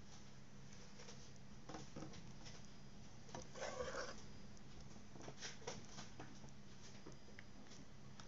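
Spoon clicking and scraping against a pot and a glass jar as thick apricot jam is spooned into the jar: scattered light clicks, with a short scrape about three and a half seconds in, over a faint low hum.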